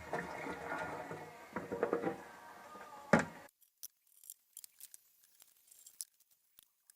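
Clinking and rattling of small hard objects over faint background music, with a sharp knock about three seconds in. The music then cuts off and only scattered small clicks remain.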